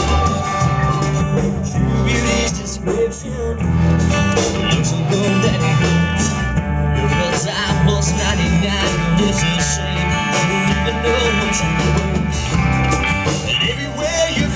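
Live band playing a country song, with acoustic guitar and a steady drum and percussion beat.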